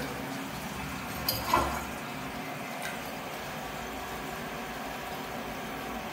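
Toilet running without stopping: water flowing steadily into the bowl because the flush lever is stuck down, a constant leak. A short louder noise about a second and a half in.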